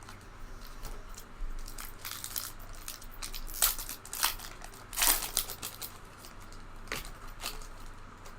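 Trading card pack wrapper crinkling and tearing open in the hands, in irregular crackles that are loudest about halfway through.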